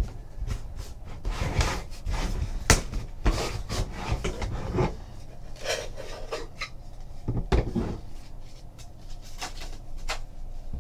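A trading card box and its wrapping being handled and opened: irregular rustling and scraping of cardboard and wrapper, with scattered sharp knocks and clicks.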